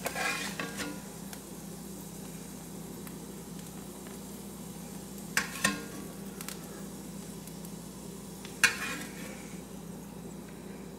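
Metal spatula scraping and knocking in a cast iron skillet as fried mushrooms are scooped out and dropped onto toast, with a few sharp clinks at the start, a little past halfway and near the three-quarter mark. The leftover butter sizzles faintly in the pan under a steady low hum.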